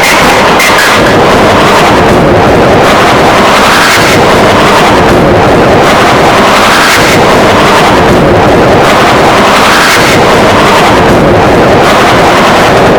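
Heavily distorted, clipped remix audio at full loudness: a dense wall of noise, swelling about every three seconds.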